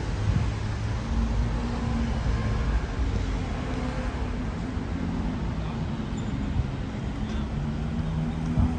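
City street traffic: cars driving past on a multi-lane road beside the pavement, a steady low rumble, with an engine hum growing louder near the end.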